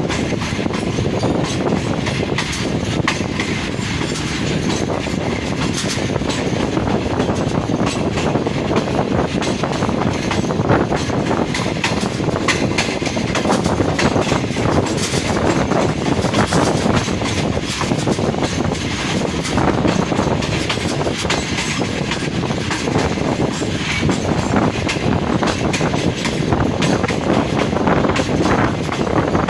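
Passenger train running steadily along the track, its wheels clattering over the rail joints with a constant rumble and many rapid clicks.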